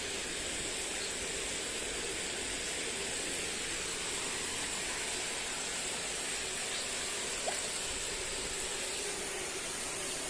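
Shallow stream water flowing steadily, an even rushing noise, with one short click about seven and a half seconds in.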